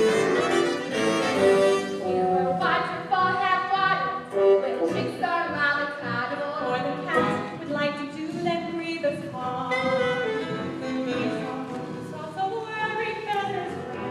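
A stage-musical chorus singing with instrumental accompaniment.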